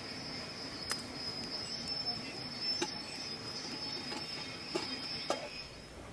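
Steady high-pitched insect trill, cricket-like, that cuts off near the end, with four sharp clicks scattered through it.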